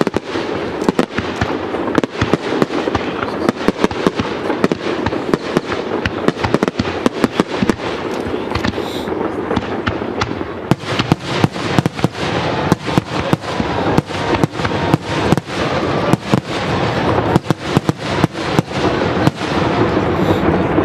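Aerial fireworks display: a dense, rapid barrage of shell bursts, several bangs a second, over a continuous wash of noise. The barrage thins briefly about halfway, then picks up again.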